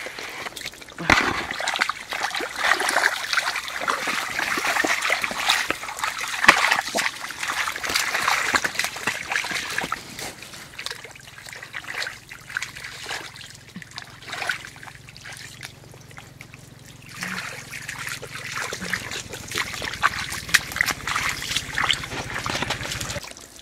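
Muddy water splashing and sloshing in irregular bouts, with many small wet clicks and slaps, strongest in the first half and again near the end. A faint low steady hum runs beneath the second half.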